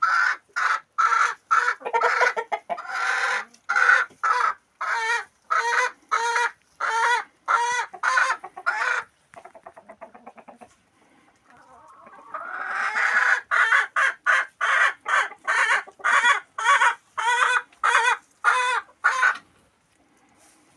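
Chicken clucking loudly in a long run of repeated calls, about two a second. About halfway there is a softer, quicker stretch, then the calls build up again and carry on until shortly before the end.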